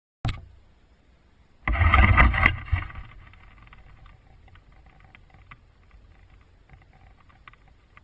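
A loud rustling burst close to the microphone, lasting about a second, starts a little under two seconds in. It fades into a faint low rumble with scattered light clicks.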